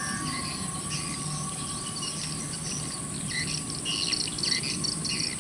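Birds chirping in many short, quick calls, over the faint steady whine of a small electric RC plane motor flying away.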